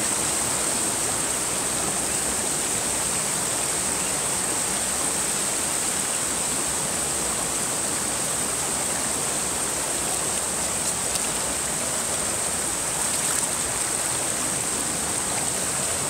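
A rocky stream running steadily over a string of small cascades into a pool. It carries quite a lot of water and makes an even rushing hiss.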